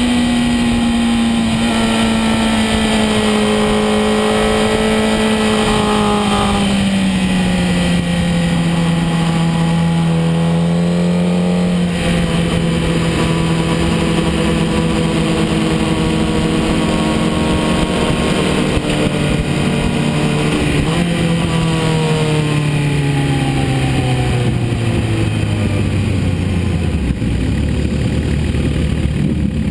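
Superbike engine heard from on board at moderate revs, its pitch stepping down once early on and holding steady. Later it picks up briefly, then falls steadily as the bike slows to a low, steady idle-like run near the end.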